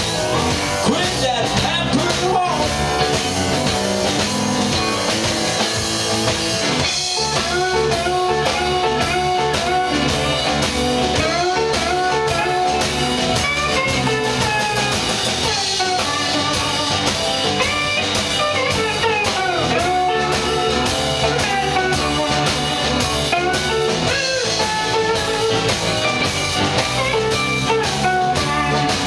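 A blues band playing live in an instrumental passage, with a lead guitar over drum kit. The guitar's notes bend and glide in pitch.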